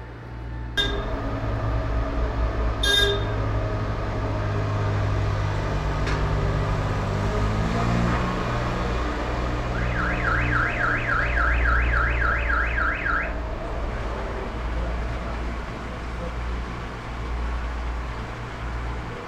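Steady low hum of machinery in an underground tunnel, with a small works vehicle running. Two short beeps sound in the first three seconds, then about ten seconds in an electronic warning alarm warbles rapidly, three or four rises a second, for about three seconds.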